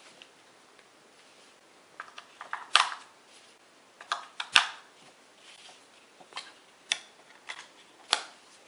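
AAA batteries being pressed into a laser distance meter's plastic battery compartment and the back cover being fitted: a scatter of short sharp clicks and taps starting about two seconds in, the loudest about halfway through.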